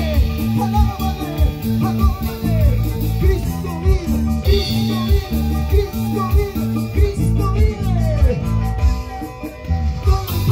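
Live band playing an upbeat praise song, led by a harp and an electric bass over a steady beat.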